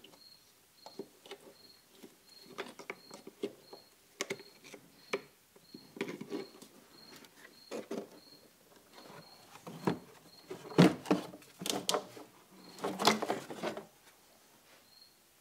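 Hand work on a plastic engine air intake: a screwdriver loosening the worm-drive hose clamps on the intake boots, then the plastic airbox lid and intake tube pulled free and handled. Irregular clicks, scrapes and plastic knocks, loudest in a cluster near the end as the lid comes off.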